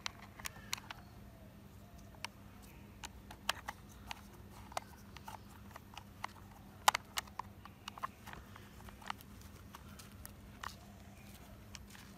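Plastic parts of a take-apart toy excavator clicking and knocking as they are handled and screwed together with plastic screws and a plastic toy screwdriver: irregular sharp clicks, the loudest about seven seconds in.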